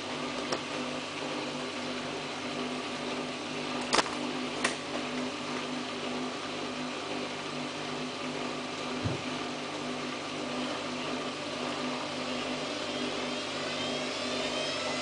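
Samsung WF8804RPA washing machine running in its service-mode spin test: a steady motor hum broken by a few sharp clicks and a knock. Near the end a rising whine sets in as the drum motor speeds up into the spin.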